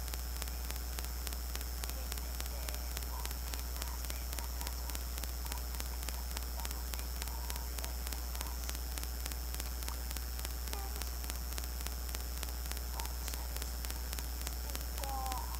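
Steady low electrical hum under a constant hiss and fine crackle, the noise floor of an open microphone with no one speaking.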